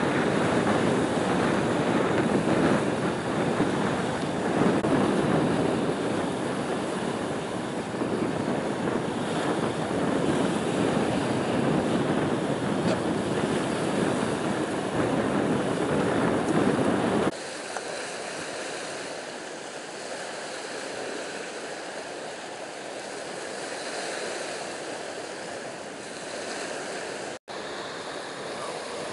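Wind blowing on the microphone over choppy water, a steady rushing noise with no clear engine tone. About seventeen seconds in it drops suddenly to a quieter, thinner hiss, and near the end there is a split-second gap of silence.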